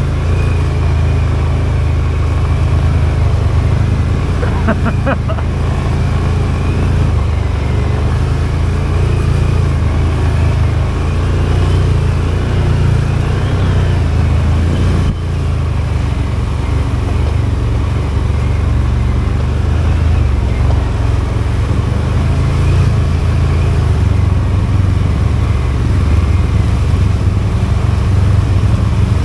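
Can-Am ATV's Rotax V-twin engine running at low speed, a steady low drone, as the machine crawls along a muddy, puddled trail.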